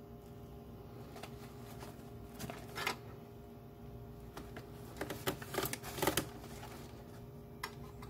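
Plastic hair-dryer bonnet crinkling and rustling as it is handled, in short bursts about three seconds in and again around five to six seconds in, with a few light clicks. A faint steady hum runs underneath.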